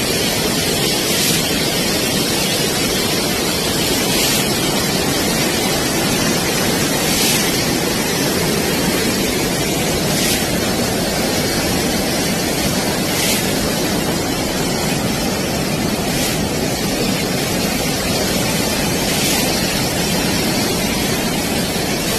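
Steady rushing of floodwater, an even noise that doesn't let up. A faint brief hiss recurs about every three seconds.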